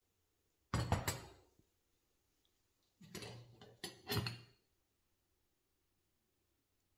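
A cast-iron antique spirit stove knocks down onto a hard tile floor about a second in. Later its hinged cast-iron lid rattles, then clanks twice as it is swung open.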